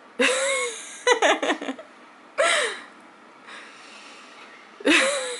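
A few short vocal exclamations and gasps rather than words, most falling in pitch: one just after the start, a quick cluster about a second in, another near the middle and one more just before the end.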